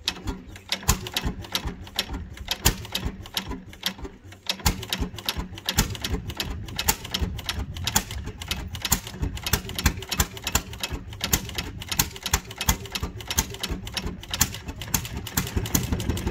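Antique vertical single-cylinder stationary gas engine with twin flywheels starting up after being turned over by hand, then running with a rapid string of sharp exhaust pops and clicks. It falters briefly about four seconds in, then runs on evenly.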